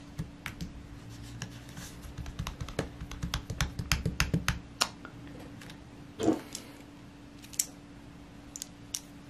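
Light clicks and scratches of fingertips and a fingernail working a laptop's battery cable connector loose from its motherboard socket, busiest in the first half, with one louder knock about six seconds in.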